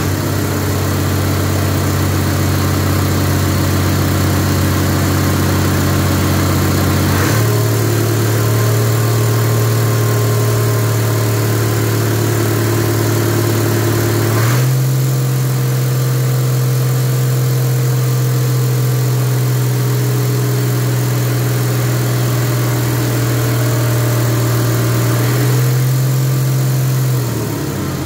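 Rebuilt Perkins six-cylinder diesel engine running at its test run-in. It holds steady speeds, is throttled up by hand in two steps about seven seconds apart, and is brought back down near the end.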